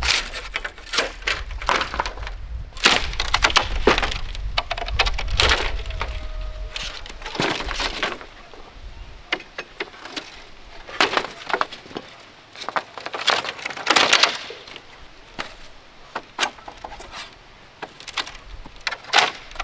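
Wood breaking: irregular sharp cracks and snaps mixed with short rasping bursts, as sticks or poles are broken and split.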